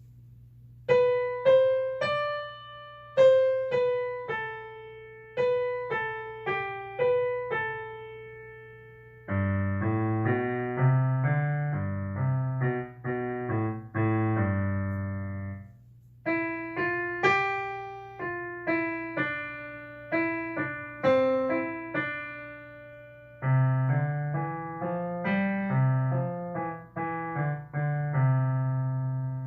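Piano playing a simple piece: a single-note melody of separate struck notes, alternating with passages of lower chords held under the tune. A faint steady low hum sits underneath.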